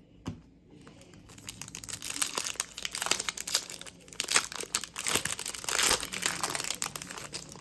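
Crinkling and tearing of a foil trading-card pack wrapper being handled and opened, a dense run of crackles that starts about a second and a half in after a single light knock.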